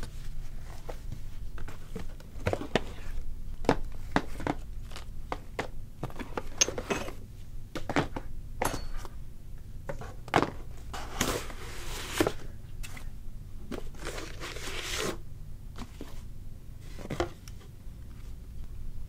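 A cardboard box being handled and opened by hand: a run of short scrapes, taps and rustles, with longer rustling stretches a little past halfway.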